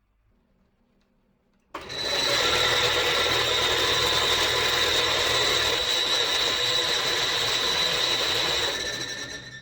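A power tool starts abruptly about two seconds in and runs steadily with a high whine for about seven seconds, then winds down near the end.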